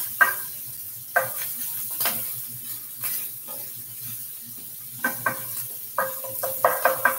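Wooden spoon knocking and scraping against a cast-iron skillet as browning sausage is broken up, over a steady frying sizzle. The knocks come about once a second at first, thin out in the middle, then come in a quick run near the end.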